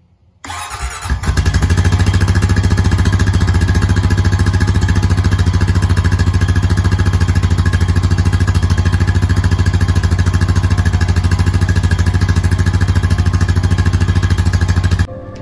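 Honda Rancher 420 ATV's single-cylinder engine cold-starting after sitting two weeks at 50°F. It catches about half a second in and settles within a second into a steady, fast-pulsing idle from the muffler, which cuts off abruptly near the end.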